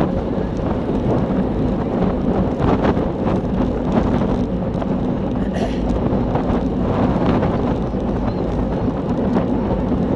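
Wind buffeting the microphone of a handlebar-mounted camera on a road bike moving at racing speed, a steady low rumble.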